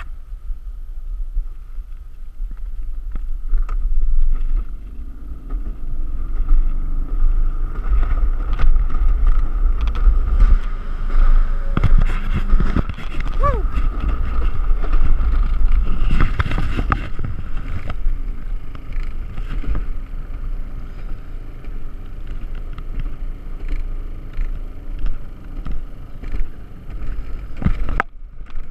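Mountain coaster sled running down its steel tube track: a steady low rumble of the wheels on the rail with rattles and clicks, louder through the middle stretch of the run.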